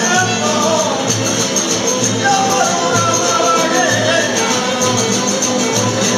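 Cuadrilla folk band playing a parranda live: several Spanish guitars strumming under a gliding melody line, with a low beat about once a second.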